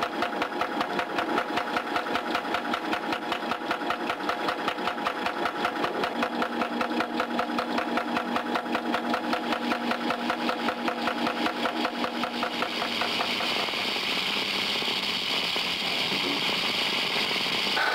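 Belt-driven laboratory motor running with a rapid, regular chugging, giving way about 13 seconds in to a steadier hiss.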